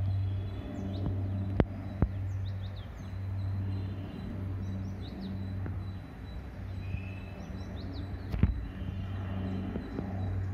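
Aircraft flying overhead: a low, steady drone that swells and fades every second or so. Birds chirp with short high calls throughout, and a few sharp clicks stand out, near the start and about eight seconds in.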